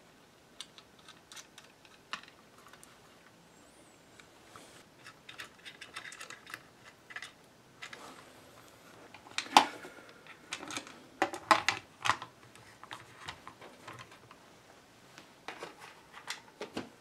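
Scattered clicks, taps and light knocks of metal parts, wire leads and a transformer being handled and set loosely onto a bakelite amplifier front panel. One sharper knock comes about halfway through, followed by a quick cluster of clicks.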